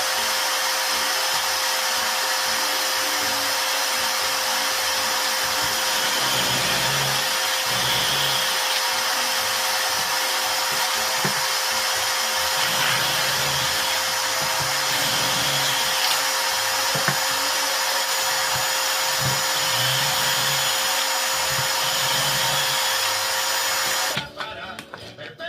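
An electric power tool running steadily with a constant whine, with a few light knocks, then cutting off abruptly about a second before the end.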